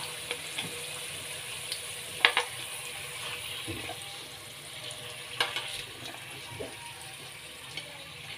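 Sweet potato fries sizzling in hot oil in a metal wok, a steady frying hiss. A metal spoon clinks and scrapes against the wok several times, loudest about two and five seconds in, as the cooked fries are pushed up the side to let the oil drain.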